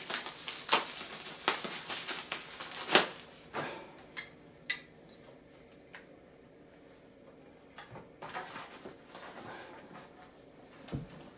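Plastic bubble-wrap packaging crinkling and rustling as it is cut open with a utility knife and pulled off a small boxed battery, with several sharp crackles in the first few seconds. It goes quieter with a few isolated clicks, then more rustling of packaging being handled, and a soft thump near the end as an item is set down.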